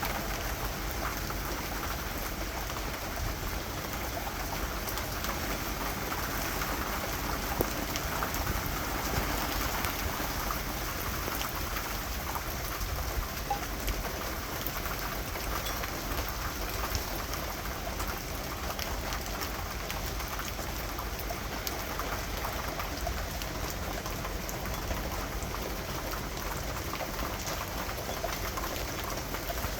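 Steady rain falling, a continuous hiss with scattered individual drops ticking on a surface.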